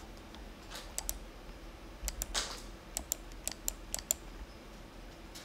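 Computer keyboard keystrokes: scattered clicks, a pair about a second in and a quick run of about six keystrokes about three seconds in, as values are typed into a form field.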